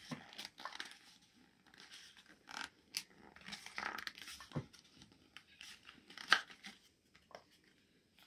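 A sheet of paper being folded and creased by hand: soft, intermittent rustles and crinkles, with one sharper crackle about six seconds in.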